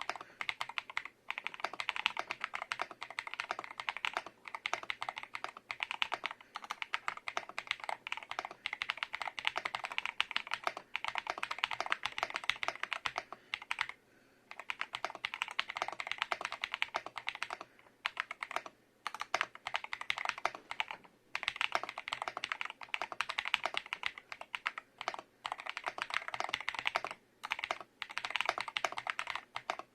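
Typing on a GMK67 67-key mechanical keyboard with AKKO Cream Yellow V3 linear switches and thick Rocket keycaps: fast, continuous keystroke clacking, broken by a few short pauses.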